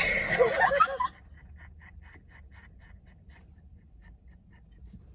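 Young women laughing: a loud burst of laughter for about a second, then quiet, breathless, wheezing laughter in short, even gasps.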